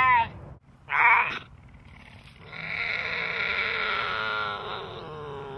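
Female cougar in heat calling: two short yowls about a second apart, then a long, drawn-out call that slides down in pitch toward the end. These are its estrus calls.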